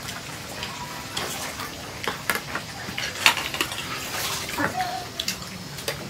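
Metal spoons clinking and scraping against ceramic plates and bowls during a meal: a scatter of short, sharp clinks at uneven intervals.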